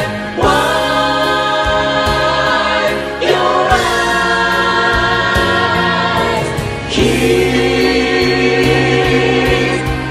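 A gospel mass choir of women's and men's voices singing in harmony, in three held phrases that start about half a second, three seconds and seven seconds in.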